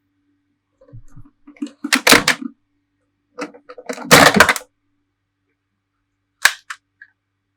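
Sound effects from a Bandai DX Ark Zero One Progrise Key toy's small speaker: two loud, harsh, blast-like effects about two seconds apart, each led in by smaller crackles. A single sharp click follows near the end.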